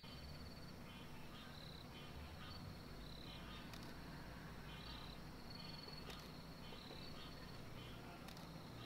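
Night insects chirping in short, repeated trills, over a low steady background rumble. Three faint sharp clicks come about two seconds apart in the second half, a camera shutter firing.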